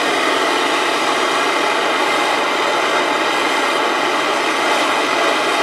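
Gas torch burning with a steady, even hiss.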